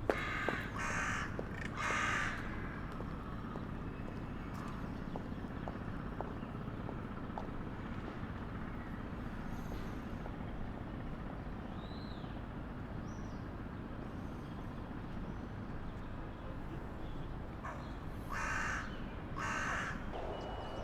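A crow cawing: a few short harsh caws in the first couple of seconds, then another run of caws near the end, over steady low street hum.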